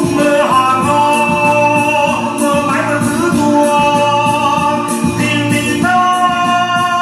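A man singing a slow Vietnamese ballad in long held lines, over a keyboard and band backing.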